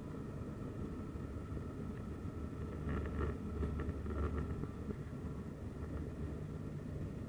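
Turboprop airliner cabin noise beside the propeller: the engine and propeller make a steady low drone with a faint steady whine above it. It swells a little louder for about a second and a half near the middle.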